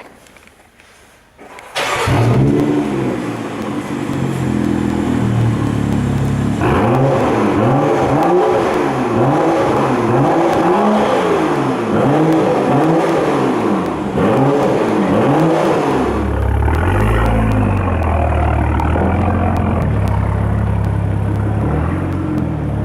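BMW X5 with a tuned aftermarket exhaust system starting up about two seconds in and running at a fast idle, then revved in a series of short blips about once a second, the pitch rising and falling with each. It then settles to a steady, deep idle.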